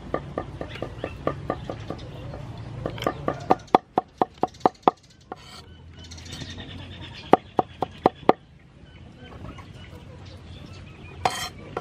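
Steel cleaver chopping garlic on a wooden cutting board: rapid, regular knocks about four a second, a few louder strikes a little past the middle, then a pause and a short burst of four more.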